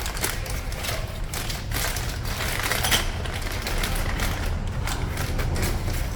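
Small metal parts clicking and rattling as they are handled on a workbench, a quick irregular run of clicks over a low hum.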